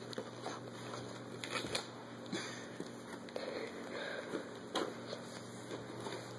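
Crinkling and rustling of gift wrapping paper on a small box being handled, with a few sharp clicks and knocks.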